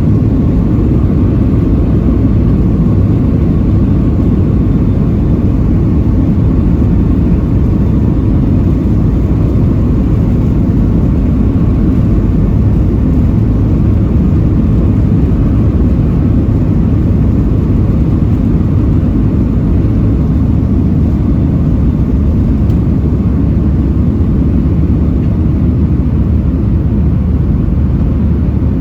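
Cabin noise of a Boeing 737-700 at speed: its CFM56 jet engines and the airflow make a loud, steady deep rumble with a faint hum on top.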